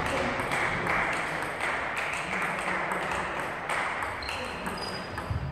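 Table tennis rally: the plastic ball clicks off the bats and the table in a quick back-and-forth, echoing in a large hall.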